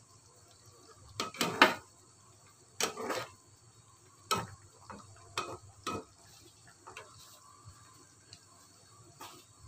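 Metal spatula clinking and scraping against a nonstick pan while stirring chunks of tofu and tempeh in coconut milk: a run of separate knocks and scrapes, loudest about a second and a half in, thinning out toward the end.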